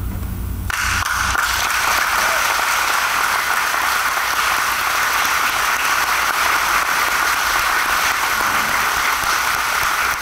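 Audience applauding, setting in less than a second in and going on steadily.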